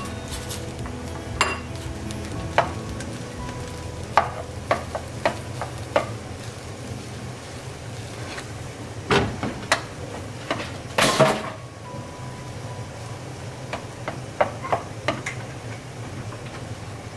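A metal spatula scraping and tapping against a wok as fried rice with scrambled egg is stirred and tossed, over a low sizzle. The clicks come irregularly, with a longer, louder scrape about eleven seconds in.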